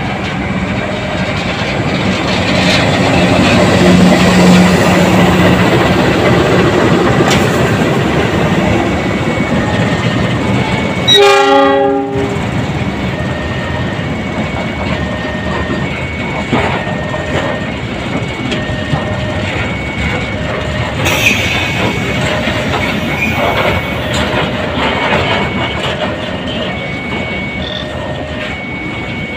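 A KAI diesel-electric locomotive hauling empty flat wagons rolls slowly through a station. Its engine rumble swells over the first few seconds, and a short horn blast sounds about eleven seconds in. After that the wagons pass with wheels clacking over the rail joints.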